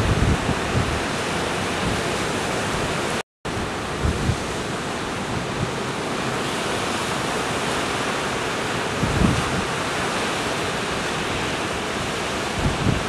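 Ocean surf breaking and washing in, a steady rushing hiss, with wind buffeting the microphone in low gusts. The sound cuts out completely for a moment about three seconds in.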